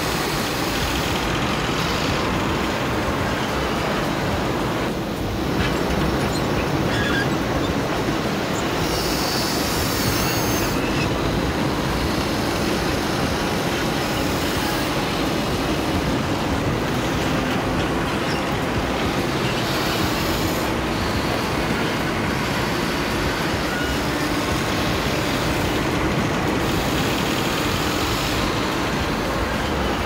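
Steady whirring of a Huina remote-control toy excavator's electric motors as it swings its arm and scoops sand, with the wash of surf behind it.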